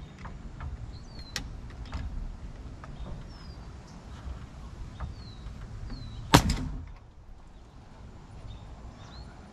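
Pneumatic framing nailer firing once, a single sharp bang a little past halfway, driving a nail into a wall stud. Light knocks of wood and tool handling come before it.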